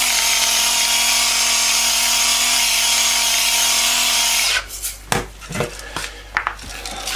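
Electric salt mill grinding salt, its motor whirring steadily, then cutting off suddenly about four and a half seconds in. A few sharp knocks and clatters follow.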